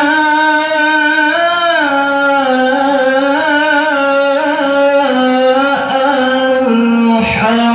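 Male qari reciting the Quran in a high register, amplified through a handheld microphone. He holds one long melismatic phrase whose pitch steps gradually downward.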